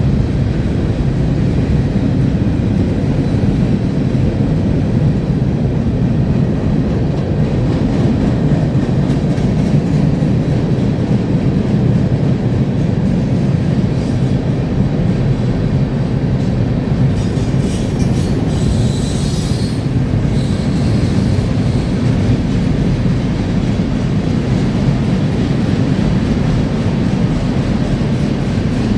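Cars of a CSX freight train rolling past: a loud, steady rumble of steel wheels on rail, with a brief high squeal of wheels about eighteen seconds in.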